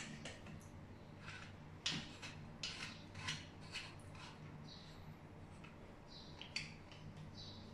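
Faint clicks and scrapes of a chrome shower mixer body being handled and offered up to its wall connectors, the sharpest click about two seconds in. A few short high squeaks come about halfway through and near the end, over a low steady hum.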